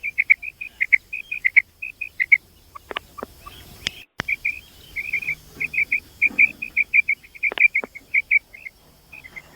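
Female common quail calling: a rapid series of short, high notes, several a second, in runs with short pauses, with a few sharp clicks and a brief dropout about four seconds in.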